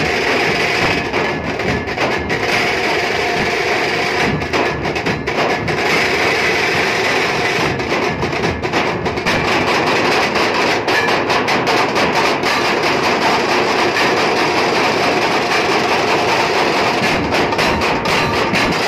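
Nashik dhol-tasha ensemble drumming: many large barrel dhols beaten with sticks together with small tasha drums, in a loud, unbroken, fast rhythm.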